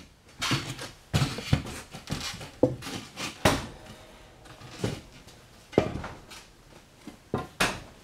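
Irregular knocks and clatters of wooden boards being handled and set down, the long lever board knocking as it is leaned against the wall framing. About a dozen sharp knocks, the loudest a little past the middle and near the end.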